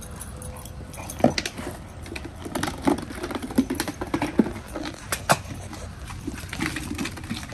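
Two puppies playing with a plastic bottle and a ball: an irregular run of knocks and clatters, with short puppy vocal sounds among them.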